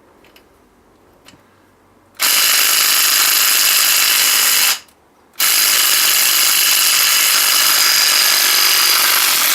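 DeWalt DCF813 10.8 V cordless 3/8" impact wrench hammering on a 22 mm alternator pulley nut in two long bursts with a short pause between, undoing the nut.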